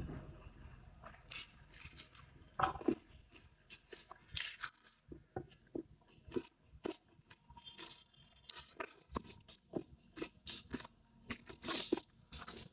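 A person eating close to the microphone, biting and chewing food with irregular crisp crunches and a few louder bites near the end.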